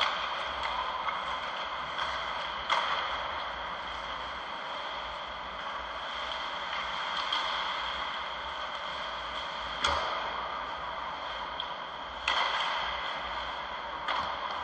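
Ice hockey play in an indoor rink: a steady hiss of skates and arena noise, with a few sharp knocks from sticks and puck, the loudest about ten seconds in and another just after twelve.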